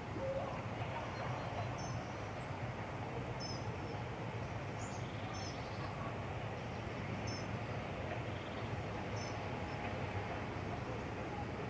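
Outdoor background noise with a steady low hum, and a small bird giving short high chirps every second or two.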